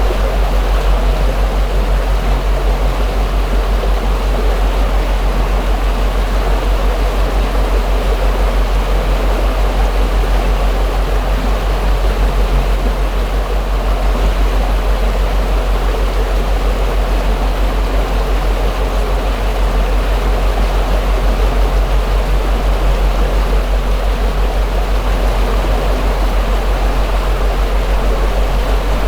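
Houseboat under way: its motor running steadily with a deep, even hum, under a constant rush and splash of water along the hull.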